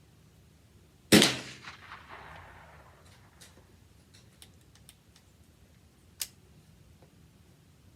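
A single AR-15 rifle shot about a second in, with an echoing tail that dies away over about a second. Faint ticks follow, and a much quieter sharp crack comes about six seconds in.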